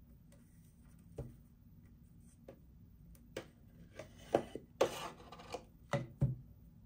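Hands handling toy packaging: a series of irregular taps and clicks, with a short rustle about five seconds in.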